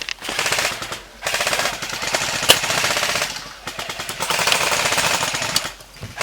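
Airsoft gun firing on full auto in long, rapid bursts, three of them with short pauses between, and one sharper crack about two and a half seconds in.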